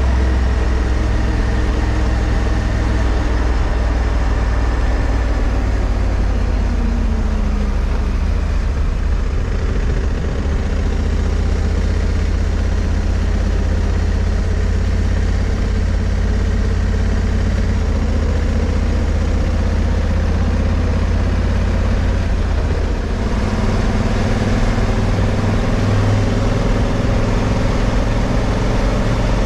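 Honda Africa Twin CRF1100L's parallel-twin engine running under way with wind and road noise. The engine note falls over the first several seconds, holds steady, then rises and grows louder as it accelerates about three-quarters of the way through.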